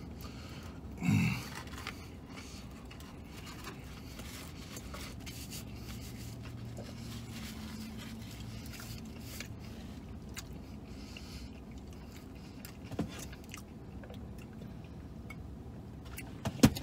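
A man chewing fried chicken fingers, with faint small clicks and rustles over a steady low hum inside a car's cabin. About a second in there is a short 'mm' that falls in pitch.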